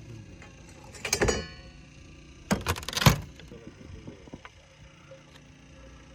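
A clink with a short metallic ring about a second in, then two hard thuds close together around two and a half to three seconds in, with a few faint clicks and taps in between.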